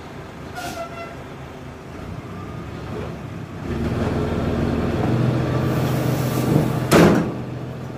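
Loaded dump truck's diesel engine idling, then revving up about halfway through and holding high revs to drive the hydraulic hoist as the bed begins to tip the sand load. A short loud burst of noise comes near the end.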